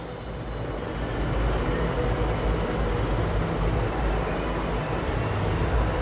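Steady low rumble of background noise that swells slightly about a second in and then holds even, with no clear strikes or rhythm.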